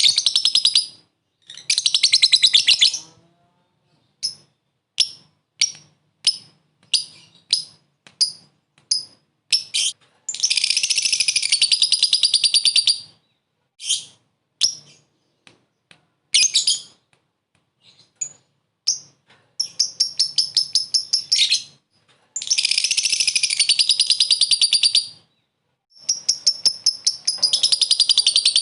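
Lovebird giving short bouts of its 'ngekek' chatter: rapid, high-pitched trills of two to three seconds each, separated by runs of single sharp chirps.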